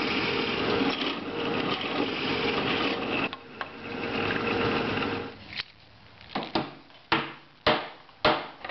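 Bench drill press running and boring out a steel threaded insert set in a wooden block, a steady drone for about five seconds. After that, several sharp knocks.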